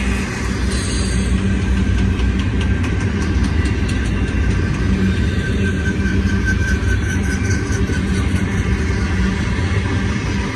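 BNSF double-stack intermodal container train rolling past: a steady rumble of steel wheels on rail with faint clicking. A faint high whine comes and goes around the middle.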